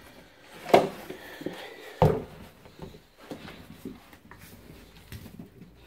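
Lever door handle and latch clicking as an internal door is opened, with a second sharp knock about a second later, then faint clicks and rustling of movement.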